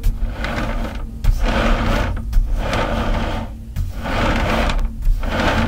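Motorized rotating display turntable running, a mechanical whirring, rubbing noise that swells and dips in a regular cycle about every second and a half over a low hum.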